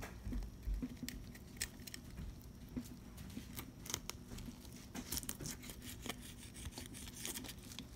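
Fillet knife cutting through a bluegill along its backbone, with scattered small crunching clicks as the blade passes over the bones.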